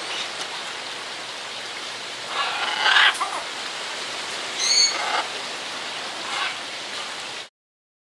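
Blue-and-gold macaws giving short harsh squawks, a loud one about three seconds in and a shorter, wavering one near five seconds, over a steady hiss. The sound cuts off suddenly near the end.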